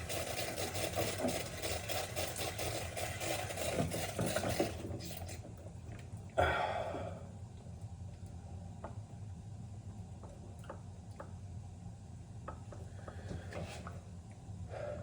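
Hands working under a sink: a steady rubbing and rustling for about five seconds, then one sharp knock about six seconds in, followed by scattered light clicks and taps of plastic parts being handled.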